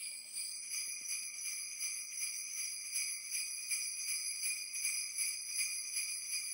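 Jingle bells shaken in a steady, even rhythm, a bright high jangle.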